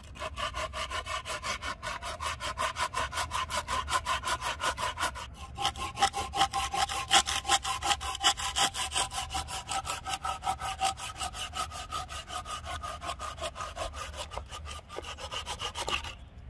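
Bahco Laplander folding saw cutting through a basswood log with rapid, even back-and-forth strokes, about four a second. There is a brief break about five seconds in, and the sawing stops near the end as the piece is cut through.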